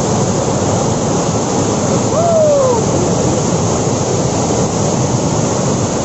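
Waterfall rapids: river water rushing over and between rock ledges, a loud, steady noise without let-up. About two seconds in, one short vocal sound falls in pitch above it.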